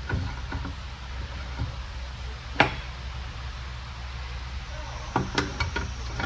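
Steel parts of an Eaton Fuller transmission shift top being handled during assembly: one sharp metal click about two and a half seconds in, then a quick run of small clicks and knocks near the end, over a steady low hum.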